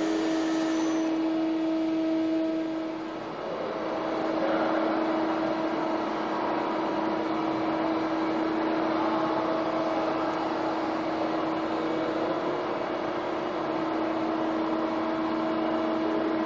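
Doosan G220 CNC lathe running: a steady machine hum with one constant pitch, briefly dropping in level about three seconds in.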